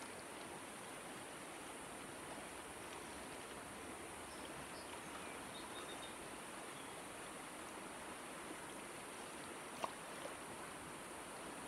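Shallow mountain river flowing with a steady rushing hiss, with a single sharp click near the end.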